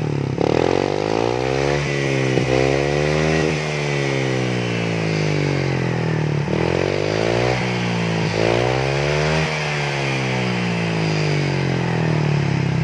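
Honda Vario 150 scooter's 150 cc single-cylinder engine breathing through an SKR aftermarket muffler, revved up and down several times with the rear wheel spinning free, then dropping back to a steady idle near the end.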